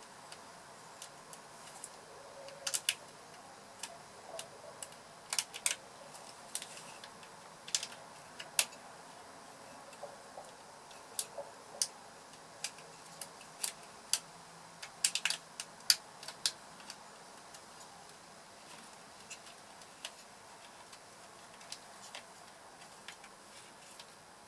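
Short, sharp, irregular plastic clicks and ticks as wires and terminal pins are handled and pushed back into a Fiat Albea engine ECU harness connector housing. The clicks come in small clusters, thinning out near the end.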